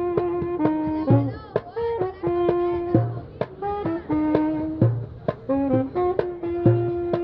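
Saxophone playing a jazz melody of held notes over a darbuka rhythm. The darbuka gives sharp strokes, with a deep bass stroke coming round about every two seconds.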